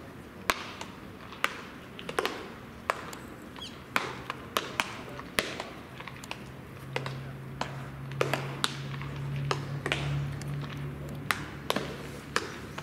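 Baseballs smacking into leather gloves during a team game of catch: many sharp pops of differing loudness at irregular intervals, about one or two a second, from several throws landing.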